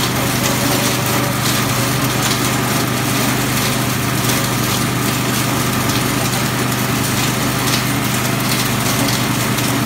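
Plastic crusher machine running steadily with a constant hum and a dense mechanical rattle, with occasional faint clicks.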